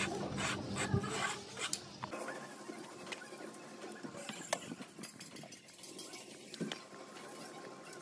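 Thin metal tool scraping loose moulding sand from the inside of a brake-drum sand casting mould: quick rhythmic scrapes for about two seconds over a low hum that stops, then quieter scattered scratching and a few light ticks.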